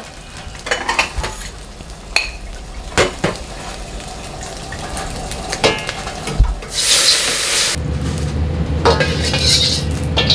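Metal ladle clinking and scraping against a carbon-steel wok as fried rice is served out. About seven seconds in comes a loud hiss lasting about a second, then the steady low roar of the gas wok burner.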